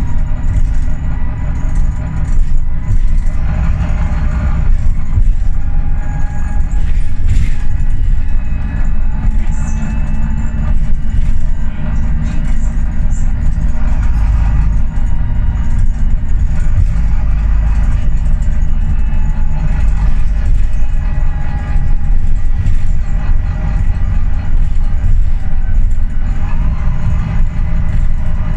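Volvo B9TL double-decker bus's six-cylinder diesel engine and drivetrain under way, heard from inside the upper deck: a steady loud low rumble with road noise, and faint whining tones that rise and fall as it drives.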